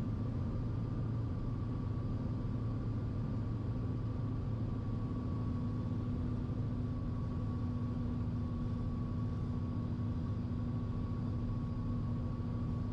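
Steady engine and propeller drone of a single-engine Piper Malibu, heard inside the cabin on final approach to landing: an even hum carrying a couple of fixed tones.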